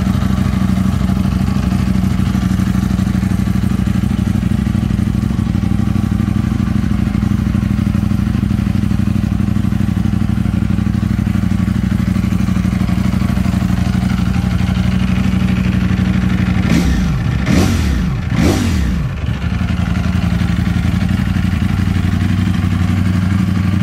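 A Ducati Panigale V4 S's 1103 cc Desmosedici Stradale V4 engine idling steadily on the stand. About seventeen seconds in, the throttle is blipped a few times in quick succession, the revs rising and falling, before it settles back to idle.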